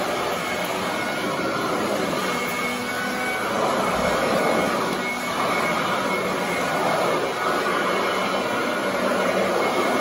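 Royal commercial upright vacuum cleaner running on carpet: a steady motor whine and rush of suction that swells and eases a little as it is pushed back and forth.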